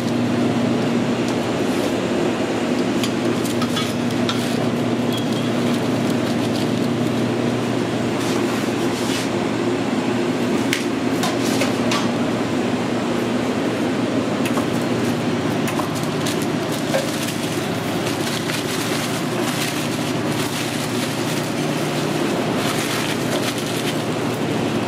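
A steady mechanical hum of kitchen equipment, with intermittent clicks and clatter as a knife cuts a cheesesteak on a metal-edged prep counter and the sandwich is rolled up in deli paper and aluminium foil, the crinkling and taps coming more often near the end.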